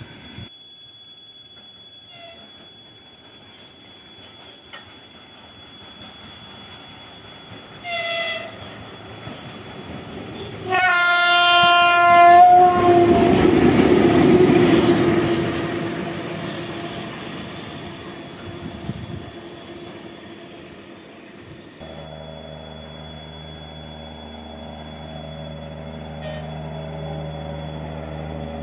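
VL10U two-section electric locomotive running light: one short horn blast, then a long, loud horn blast as it passes close, followed by the rumble of its bogies going by. After a cut, a distant railcar approaches with a steady hum.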